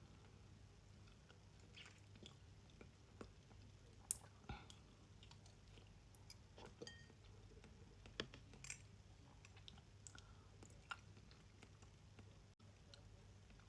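Quiet, wet chewing and lip-smacking of someone eating ripe mango, with scattered small mouth clicks, the sharpest about four seconds in and again near eight to nine seconds, over a faint steady hum.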